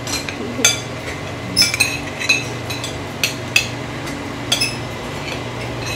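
Metal forks and cutlery clinking against plates and dishes as people eat: a scattered string of sharp, ringing clinks, about seven in all.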